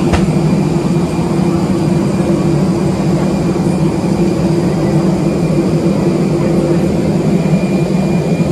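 Steady, loud machine drone with a constant low hum and faint high whine, the parked airliner's ground systems (auxiliary power and cabin air-conditioning) heard at the open cabin door.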